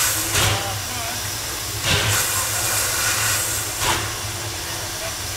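Narrow-gauge Hudswell Clarke steam locomotive hissing steam steadily, with a heavy exhaust beat about every two seconds as it works slowly.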